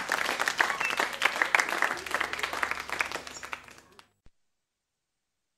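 Audience applause after a live song, thinning out over the last couple of seconds; the recording then cuts off abruptly to dead silence with a faint click.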